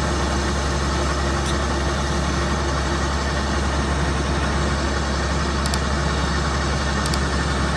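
Combine harvester engine and machinery running steadily, a loud continuous drone with a few faint high ticks.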